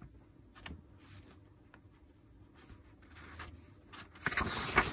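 Rotary hammer repair parts being handled by hand: a few faint clicks, then louder scraping and rattling about four seconds in.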